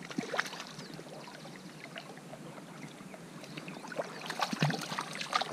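Hooked mullet splashing at the water's surface as it is reeled in. Scattered small splashes, then a louder run of splashes about four to five seconds in.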